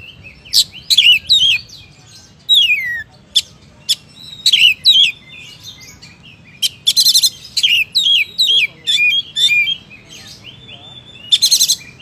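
Male oriental magpie-robin (kacer) singing vigorously: a string of loud, clear whistled phrases, many of them falling in pitch. A harsh, buzzy rattle comes about halfway through and again near the end.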